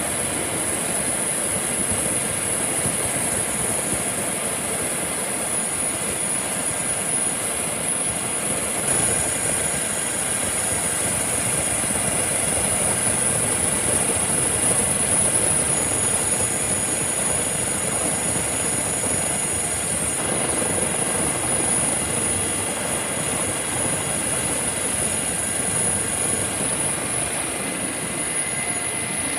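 MH-65 Dolphin helicopter's twin turboshaft engines and rotor running steadily in a hover, heard at the open cabin door, with a steady high turbine whine over the rotor noise.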